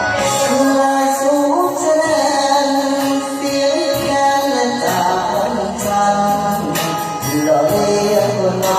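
Khaen, the Isan bamboo mouth organ, playing a melody of held, stepping chords over a drone, with a regular light percussion beat, in an instrumental passage between sung verses of an Isan folk song.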